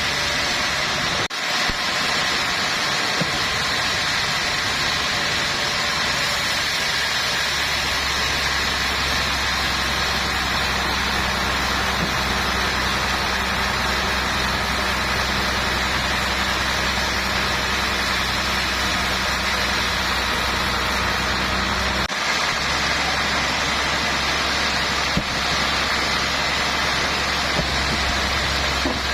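Sawmill machinery running steadily with a constant mechanical drone and a low engine hum.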